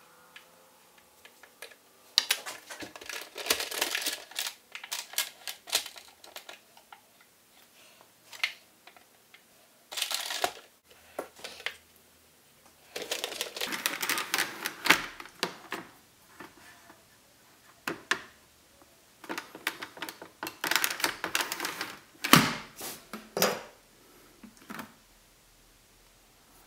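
Rapid, irregular clicking and scratching in bursts with short pauses: a plastic GoPro adhesive mount and fingers being handled and pressed against the hard shell of a motorcycle helmet.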